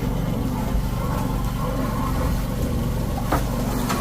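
Engine of a sewer hydro-jetting machine running steadily, a constant low drone, with a couple of faint clicks near the end.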